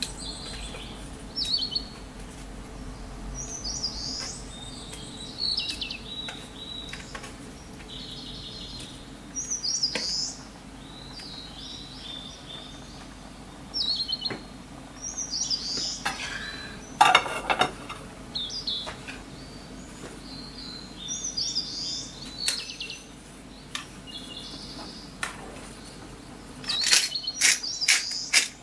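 Songbirds chirping on and off throughout, short high phrases every second or two. About 17 s in there is one loud clatter of seafood going into a metal camp cooker pot, and near the end a quick run of clicks from a pepper mill grinding black pepper.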